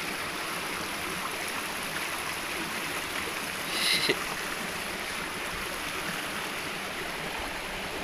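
Shallow rocky mountain stream rushing steadily over boulders. A brief high-pitched sound cuts in about four seconds in.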